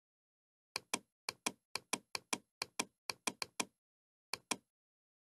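Computer mouse clicking: about fourteen short, sharp clicks, mostly in quick pairs, with a pause of about a second before the last pair.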